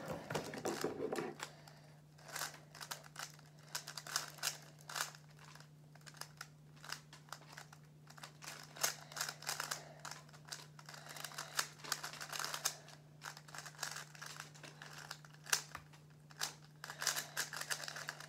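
Rubik's speed cube being turned rapidly by hand during a solve: a dense, irregular run of plastic clicks and clacks as the layers snap round. A faint steady hum runs underneath.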